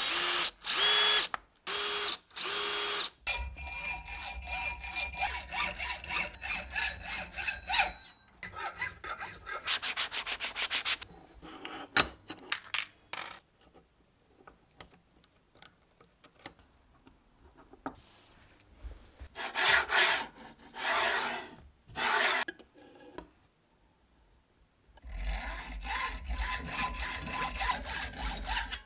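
A drill press boring and countersinking holes in a brass plate, first in short bursts and then running steadily for several seconds. A quieter stretch of small metallic clicks follows as screws are fitted with a hex key. Near the end comes a hacksaw cutting brass bar stock in back-and-forth strokes.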